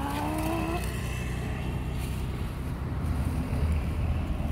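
Wind buffeting the phone's microphone, a steady low rumble, with a plastic carrier bag crackling faintly as it is handled.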